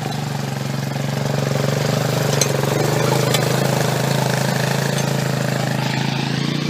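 ATV (four-wheeler) engine running steadily while towing a sled across grass, getting a little louder about a second in, with a couple of light knocks.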